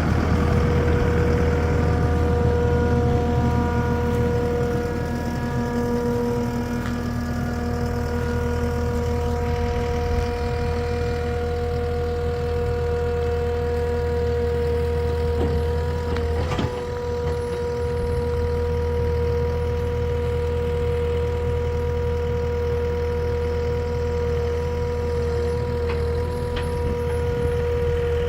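A vehicle engine idling steadily with a constant low hum and a steady whine over it, with a brief knock or two about halfway through.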